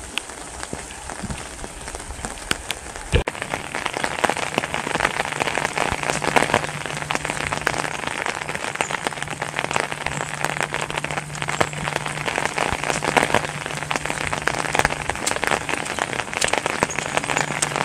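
Heavy rain pattering on an umbrella held just above the microphone, a dense mass of small drop ticks. There is a sharp knock about three seconds in, after which the rain sounds louder and closer.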